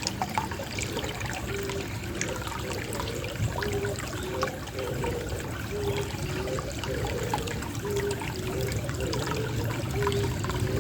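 Gently trickling water, a steady run of small splashes and drips, with a pigeon cooing in short low repeated notes about once a second.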